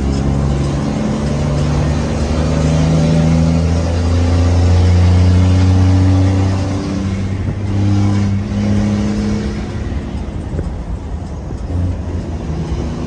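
Truck engine and road noise heard from inside the cab while driving on a highway: a steady low drone whose pitch climbs and grows louder through the first half, drops about seven seconds in, swells briefly again and then eases off.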